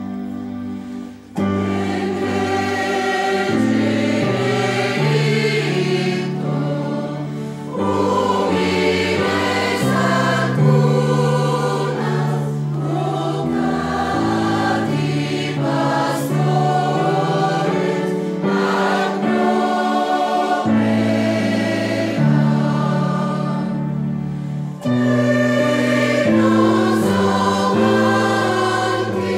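Mixed choir of women's and men's voices singing a sustained choral piece. The full choir comes in about a second and a half in, after a quieter opening.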